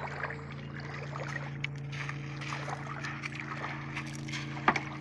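Footsteps splashing and crunching through shallow water over gravel, with one sharper click near the end. A boat engine drones steadily underneath.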